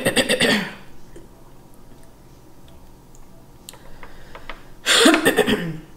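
Cooked mussel shells clicking against each other and the bowl as fingers pick through them, with faint scattered clicks. Two louder bursts stand out, one at the start and one about five seconds in.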